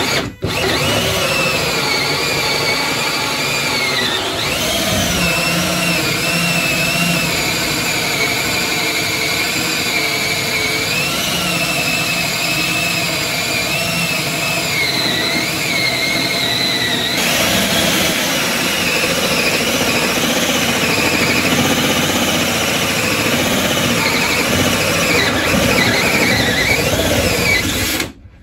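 Hole saw in a DeWalt cordless drill cutting down through a hard laminate floor. It gives a continuous high, wavering squeal over the drill's whirr, then cuts off suddenly near the end. The cutter squealing in the hard laminate, which the user thinks is blunting the saw.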